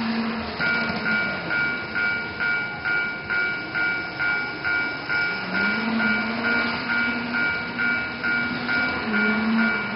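TOMIX TCS Automatic Crossing II model level-crossing alarm sounding: an electronic warning ding, two pitches together, starts about half a second in and repeats about twice a second. A low hum runs underneath.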